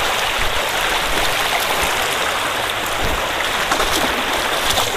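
Water of a shallow rocky stream running over stones, a steady, even rush.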